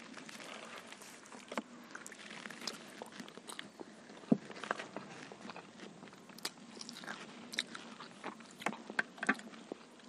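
Faint eating sounds of chicken biryani and fried chicken lollipops being eaten by hand: scattered small clicks and crunches of chewing and of fingers and food on plates.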